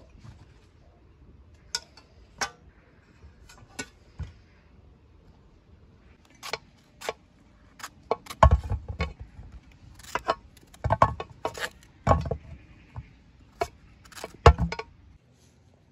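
Knife cutting and peeling raw pumpkin: crisp cracks and snaps as the blade splits the firm rind and flesh, sparse at first and coming thick and fast from about six seconds in, with several heavier knocks among them.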